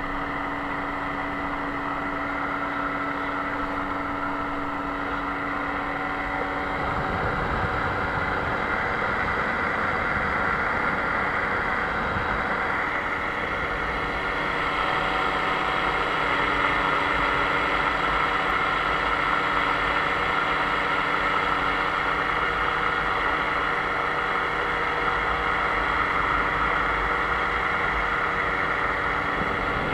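Paramotor trike's engine and pusher propeller running steadily at cruise power in flight, with a constant engine tone and wind noise on the microphone.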